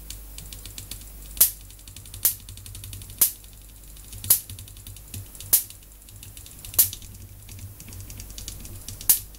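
High-voltage sparks from a CRT flyback transformer snapping across the gap, seven sharp cracks at irregular intervals about a second apart, each fired by hand-tapping the driver transistor's base onto the 12 V supply, with fainter crackling ticks between them.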